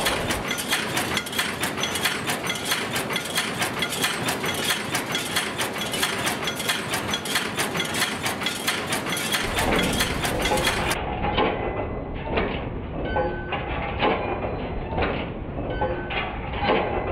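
Multi-station bolt former (cold header) running, its heading and transfer strokes making a fast, even clatter of metallic knocks. About eleven seconds in the sound turns duller, with more distinct, spaced-out knocks.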